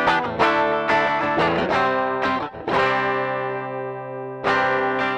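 Electric guitar played through an Archer overdrive pedal, lightly overdriven. Several quick strummed chords are followed by one chord left ringing for about two seconds, then a last strum near the end that is cut off short.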